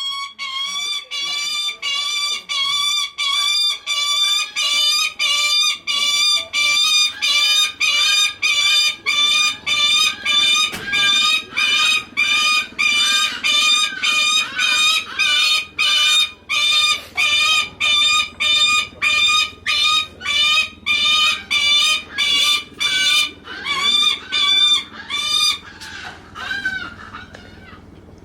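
Lanner falcon calling over and over, short high wavering calls at about two a second with hardly a break. It is begging for attention from a favourite handler.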